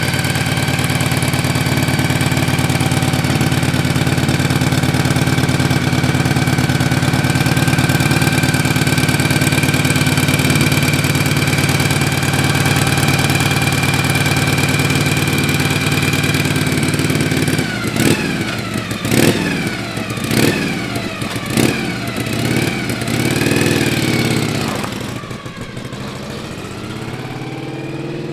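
A 1963 Harley-Davidson Panhead's V-twin engine idling steadily. About two-thirds of the way in it revs up several times, rising and dropping in pitch through the gear changes as the bike pulls away, then fades as it rides off into the distance near the end.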